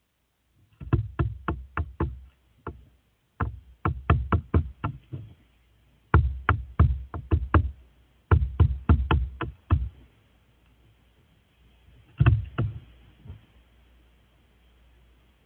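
Crow pecking at a wooden deck railing close to the microphone: sharp knocks of its beak on the wood, about four or five a second, in several runs with short pauses between, the last a short run near the end.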